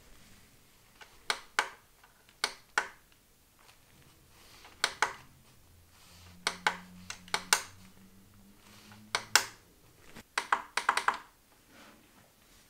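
Push-button switch on a Star Wars logo LED light clicked repeatedly, mostly in quick press-and-release pairs, with a fast run of clicks about ten seconds in.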